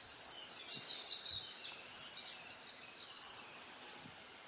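Birds chirping in quick, high twittering runs that die away a little past halfway.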